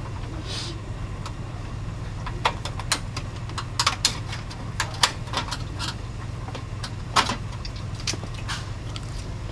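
Scattered sharp clicks and light knocks of a printer's side cover being unclipped from its two tabs, slid sideways and lifted off, over a steady low hum.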